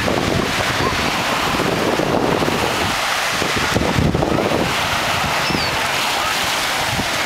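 Small lake waves washing onto a sand beach, with wind buffeting the microphone in uneven gusts.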